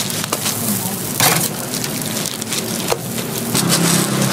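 Hotteok frying in oil on a flat griddle: a steady, crackling sizzle, with a few sharp clicks.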